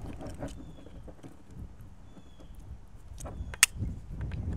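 Scattered small clicks and clinks of pliers and a metal hose fitting being handled on a plastic workbench, with one sharp click about three and a half seconds in.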